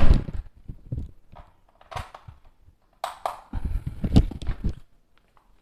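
Irregular knocks and clatter of a plastic box fan and its stand being handled, loudest near the start and again in a burst of knocks over the last couple of seconds. The fan is not running.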